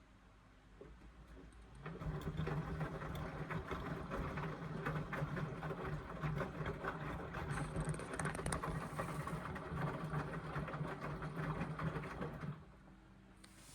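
Indesit washing machine tumbling a full load in the wash phase: the drum motor starts about two seconds in and turns the drum with a steady hum and the clatter and swish of wet laundry, then stops about a second before the end.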